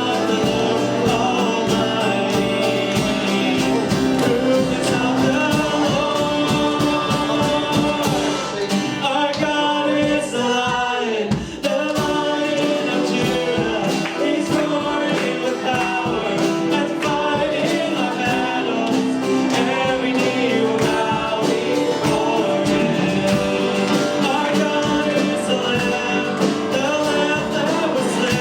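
Worship music from a church band, with singing over a steady beat.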